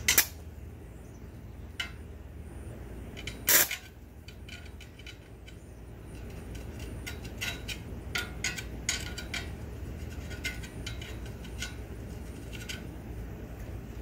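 An E6013 welding rod tapped and scratched against steel, trying to strike an arc from three 12-volt batteries in series: scattered metallic clicks and scrapes, with one louder burst about three and a half seconds in. The arc is not catching and holding.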